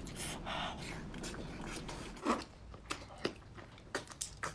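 Wet chewing and mouth sounds of someone eating a whole chili-sauced octopus, with a few short sharp clicks in the second half.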